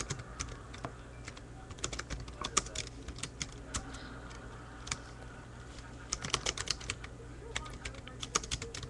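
Typing on a computer keyboard: quick runs of keystrokes, thinning out for about two seconds around the middle before the clatter picks up again.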